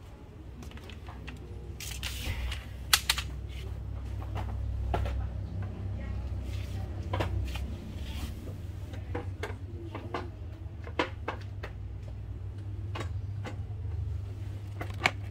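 Indoor shop ambience: a steady low rumble with scattered sharp clicks and knocks, the loudest about three seconds in.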